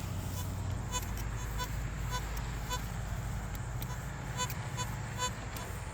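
Metal detector giving short target beeps as the coil is swept over buried metal, about eight quick pips at uneven intervals, some louder than others, over a steady low hum.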